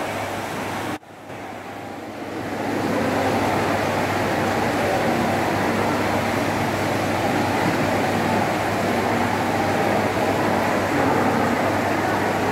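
Steady background noise of a busy indoor mall atrium: a wash of crowd murmur and ventilation hum. The sound briefly cuts out about a second in, then swells back up over the next two seconds and holds steady.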